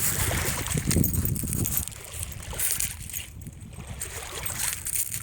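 Shallow seawater sloshing and lapping, with a low rumbling noise that is louder for about the first two seconds and then eases off.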